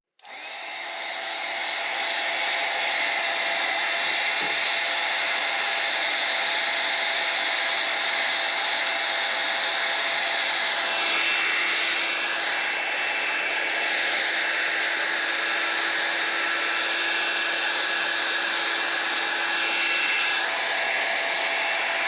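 A handheld electric power tool spinning up and then running steadily, with a small shift in its tone about halfway through and again near the end.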